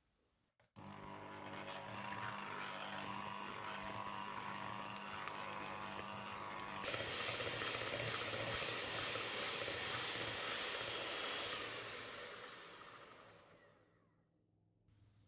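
Electric hand mixer running, its wire beaters whirring through softened butter as it is creamed. It starts abruptly, turns brighter and louder about seven seconds in, and fades away near the end.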